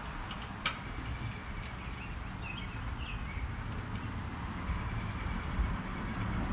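A few light clicks in the first second as parts are handled and fitted in a car's engine bay, over a steady low rumble.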